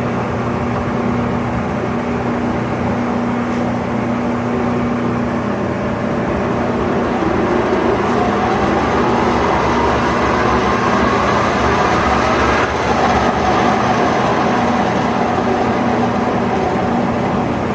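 Weisser 16-inch gap bed engine lathe running, its geared headstock and spinning chuck giving a steady hum. A whine rises in pitch through the middle as the spindle comes up to a higher speed.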